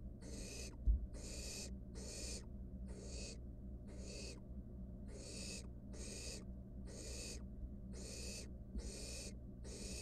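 Barn owl nestling's hissing begging calls: a steady series of rasping hisses, about two a second, each a fraction of a second long. One knock about a second in.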